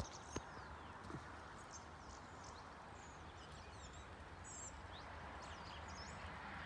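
Faint outdoor ambience: birds chirping with many short, quick calls over a steady hiss, and two light clicks in the first half-second.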